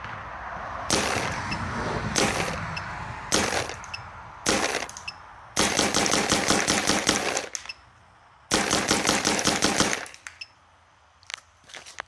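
Smart Parts Shocker SFT electropneumatic paintball marker firing in ramping mode: a few short bursts of shots, then two long rapid-fire strings of about two seconds each, the second starting about eight and a half seconds in.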